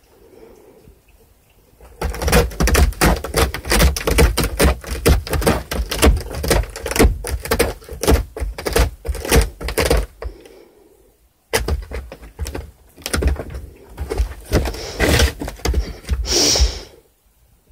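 A cat scratching and rubbing on a corrugated cardboard scratcher, dense runs of fast rasping scrapes and knocks close to the microphone, starting about two seconds in with a short pause about ten seconds in.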